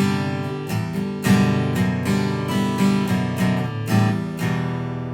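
Background music: a strummed acoustic guitar, ending on a last chord about four and a half seconds in that is left to ring and fade.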